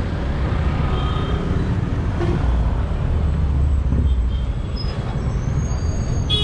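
Busy street traffic close by: motor vehicle engines running with a steady low rumble. A few faint, short horn-like tones sound in the distance.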